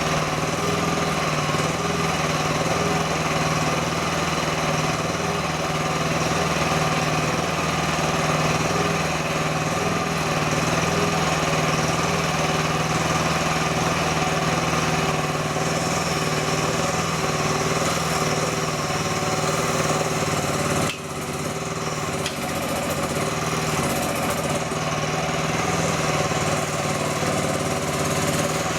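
A small engine running steadily at an even speed, dipping briefly about two-thirds of the way through.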